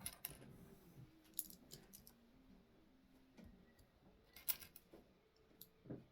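LEGO bricks clicking and rattling as the pieces are handled and pressed together: a handful of short, sharp clicks, the loudest about four and a half seconds in.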